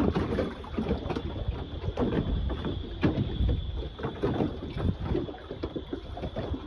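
Water splashing and slapping in irregular short bursts, over a low wind rumble on the microphone and a steady high whine.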